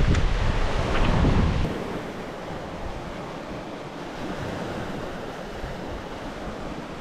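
Wind buffeting the microphone, a heavy low rumble that stops abruptly a little under two seconds in, leaving a steady, softer rush of outdoor wind noise.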